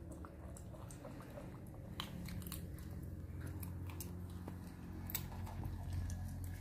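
Baby macaques biting and chewing raw carrot pieces, with sharp crunches and clicks here and there over a steady low hum.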